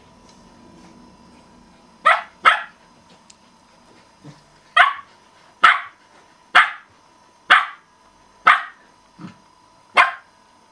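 Dog barking in play: a run of short, sharp barks about one a second, starting about two seconds in, with a couple of softer, lower ones in between.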